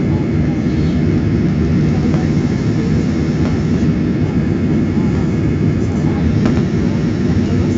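Jet airliner's turbofan engines and rolling rumble heard from inside the cabin, a steady low drone as the aircraft moves along the ground, with a few faint rattles.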